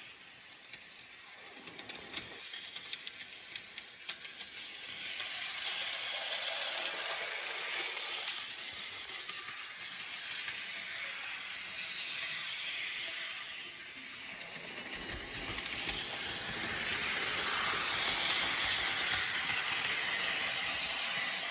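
HO-scale model train locomotive running on its track: a steady motor whir with the wheels rattling and clicking over the rail joints, a quick run of clicks a couple of seconds in, growing louder near the end as the engine passes close by.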